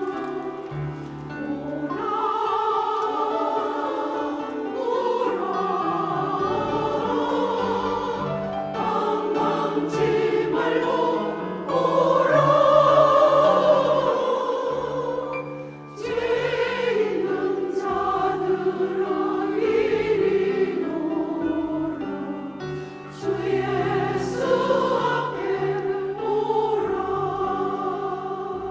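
Mixed church choir singing a hymn in Korean, swelling to its loudest about twelve seconds in, easing off briefly around the sixteen-second mark and then carrying on.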